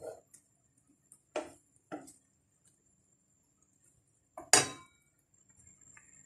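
Wooden spoon stirring in a nonstick frying pan of coconut-milk stew: a few scattered knocks of the spoon against the pan, then one louder, sharper knock about four and a half seconds in.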